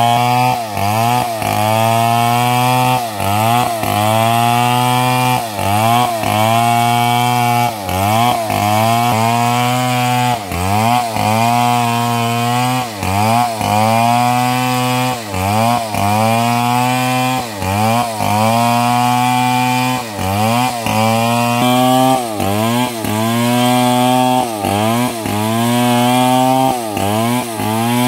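Stihl MS 070 two-stroke chainsaw running at full throttle while ripping lengthwise through a squared log. Its engine note sags briefly and recovers about once a second under the load of the cut.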